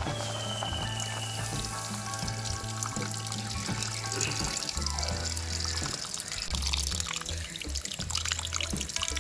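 Coconut milk poured in a thin stream into a pot of fish sothi, trickling and splashing into the curry, over background music.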